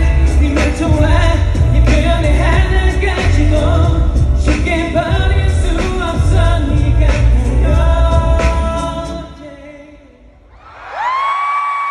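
Live pop song with singing and a heavy beat through a concert sound system, which fades out about nine seconds in. Near the end a single high held cry rings out, rising at its start and sliding down as it ends.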